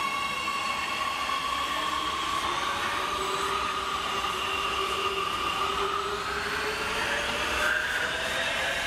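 Oslo Metro (T-bane) electric train pulling out and picking up speed, its traction motors whining in several tones that climb in pitch over the steady rolling noise of the wheels on the rails.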